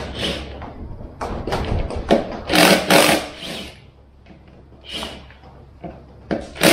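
Cordless impact driver loosening the bolts of a beadlock wheel's clamping ring in a series of short bursts, with brief pauses as it moves between bolts.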